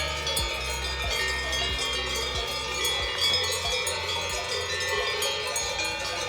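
Several cowbells on cattle clanking and ringing irregularly, many overlapping tones at once.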